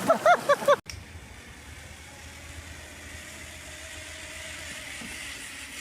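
A few loud honking goose calls, cut off abruptly under a second in. A steady engine hum follows, a low drone with a faint thin tone above it.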